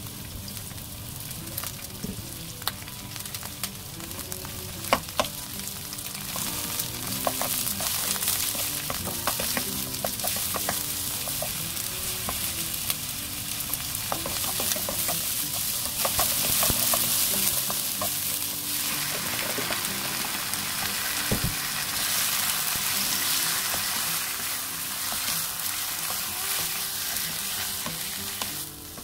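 Sliced onions, and later kimchi, sizzling in oil in a nonstick frying pan while a wooden spatula stirs them, with sharp clicks and scrapes of the spatula against the pan. The sizzle grows louder through the middle and eases off near the end.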